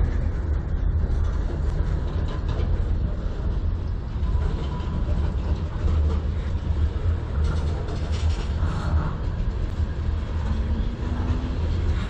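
Covered hopper cars of a freight train rolling past close by: a steady low rumble of steel wheels on rail.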